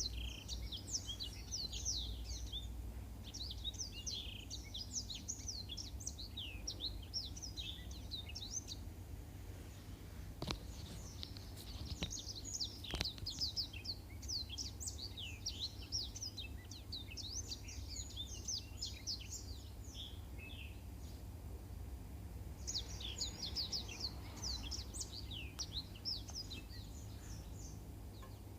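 Black-throated canary (blackthroat) singing long phrases of rapid, high chirps and trills, pausing briefly about ten and twenty seconds in, over a steady low hum.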